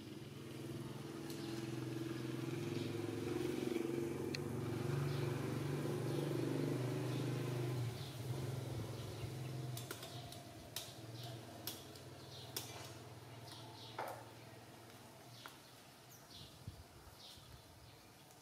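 A low engine hum, like a passing motor vehicle, swells and then fades away over about ten seconds. A few sharp clicks follow.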